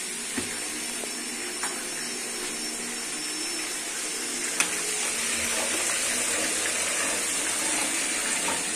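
Coated chicken pieces frying in hot oil, a steady sizzling hiss with a few small pops.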